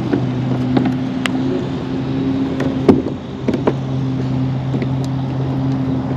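A steady low motor hum, with several sharp clicks and knocks over it, the loudest about three seconds in.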